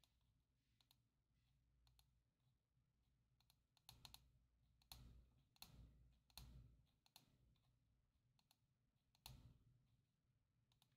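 Near silence with faint computer mouse clicks: a run of several about four to seven seconds in and one more near the end.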